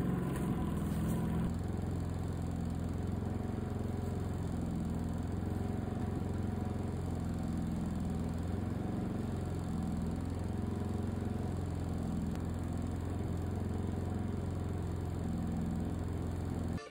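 Small portable generator engine running steadily, its pitch wavering slightly up and down.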